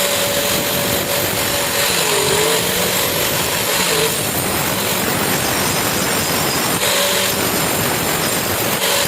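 Electric power tool grinding or sanding metal, a steady rushing noise with a faint motor tone that dips briefly about two and a half seconds in.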